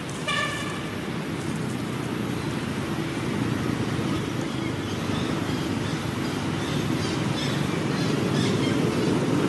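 Steady low rumble that grows slowly louder, with a short high-pitched call about half a second in and faint high chirps later on.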